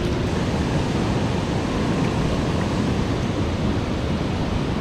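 Steady rushing noise of water pouring through a flooded spillway, even and unbroken.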